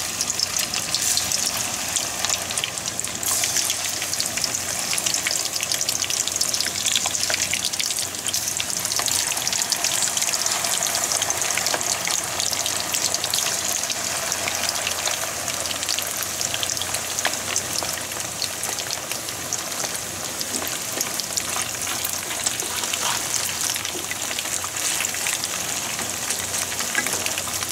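Floured karaage pieces deep-frying in a pan of hot oil: a steady, dense sizzle with fine crackling throughout.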